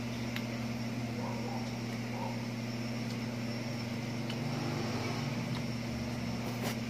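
A steady low hum under a faint hiss, with a few faint clicks.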